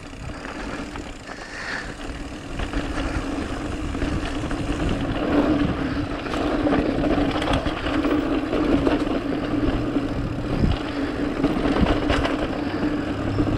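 Mountain bike rolling fast down a dirt flow trail: a steady rush of tyre and wind noise that grows louder a few seconds in, with a few sharp knocks and rattles from bumps.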